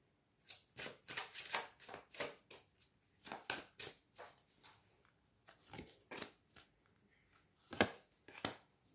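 Oracle cards being shuffled and handled: a string of soft, irregular papery clicks, then two louder taps near the end as cards are drawn and laid down on the table.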